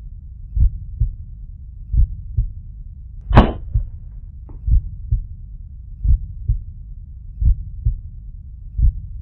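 A heartbeat sound effect: pairs of low, dull thumps repeating evenly about every second and a half. A sharper, brighter crack comes about a third of the way in.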